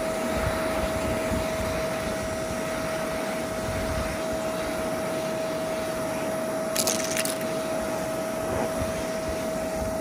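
Bissell Zing bagless canister vacuum running steadily on a lawn, its motor giving a constant whine over a rushing of air, with two brief crackles about seven seconds in.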